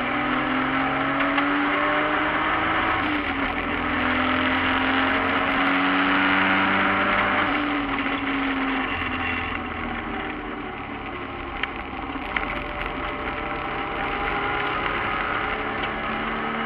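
In-cabin sound of a BMW E36 race car's turbocharged 1JZ-GTE VVTi straight-six running hard. Its pitch climbs and steps at gear changes, about three and seven and a half seconds in. It runs quieter for a few seconds past the middle, with a few sharp clicks.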